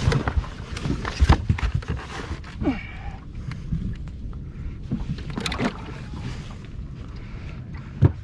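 Small boat at sea: water slapping and sloshing against the hull, with wind rumbling on the microphone and irregular knocks on the boat, the sharpest one near the end.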